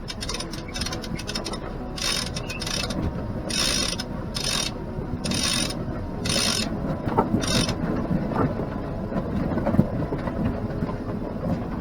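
Sailboat winch being cranked with a winch handle, its pawls ratcheting in a run of short bursts, about one a second, that stop after about eight seconds. A steady low rush continues underneath.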